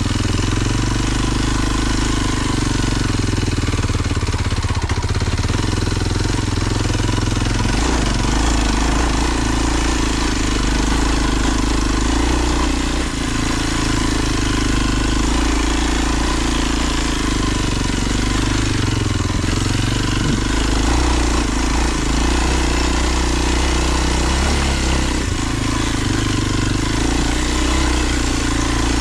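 Kawasaki KLX230 dual-sport motorcycle's single-cylinder four-stroke engine running steadily while riding, its pitch shifting a little with the throttle.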